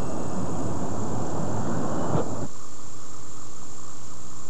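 Rumbling background noise that cuts off abruptly about two and a half seconds in. It gives way to a steady electrical buzzing hum with hiss from a blank stretch of videotape, under a thin high whine that never stops.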